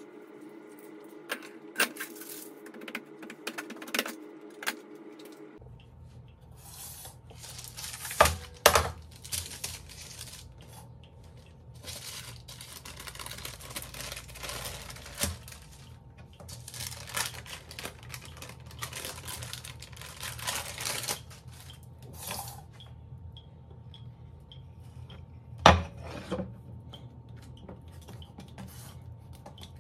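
Light clicks as a perforated tart ring is handled, over a steady hum; then baking paper rustling and crinkling as it is peeled off a sheet of rolled-out tart dough, with a few sharp knocks on the countertop.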